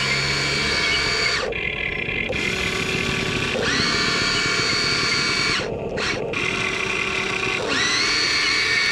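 Electric motors of a Huina 1593 RC excavator whining as it is driven at a steep dirt slope, in runs broken by short pauses. Near the end the whine slides up to a higher, wavering pitch. Driven straight up, it cannot make the climb on track power alone.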